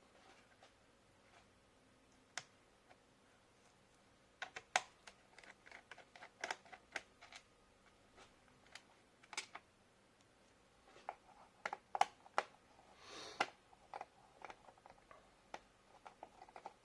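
Irregular small clicks and taps of a screwdriver and screws against a laptop's plastic bottom case as the case screws are taken out, with a short scraping rustle a little past the middle.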